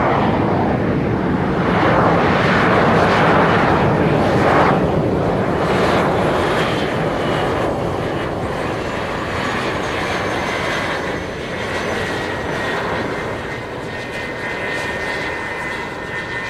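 Bombardier Challenger 3500 business jet's twin turbofan engines as it lands: a loud rushing jet noise that is strongest in the first few seconds and then slowly fades, leaving a high turbine whine that falls slowly in pitch.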